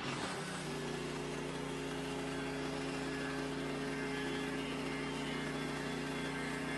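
Portable bandsaw sawmill's engine speeding up at the start and then running steadily at high speed.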